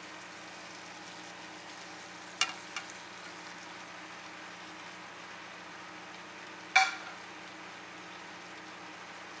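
Chicken pieces sizzling steadily in a frying pan. There are two light knocks about two and a half seconds in and one loud, ringing clink about two-thirds of the way through, as onions and napa cabbage are tipped into the pan.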